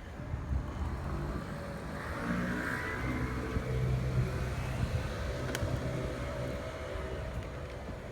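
Street traffic: a motor vehicle's engine passing close by, loudest about three to four seconds in.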